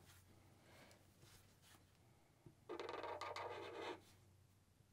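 Black marker drawing a line on paper: mostly near silence, then one scratchy stroke lasting about a second, starting almost three seconds in.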